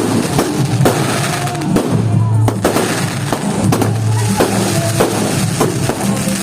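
Fireworks going off in an irregular string of sharp bangs, roughly two a second, over music with a steady bass.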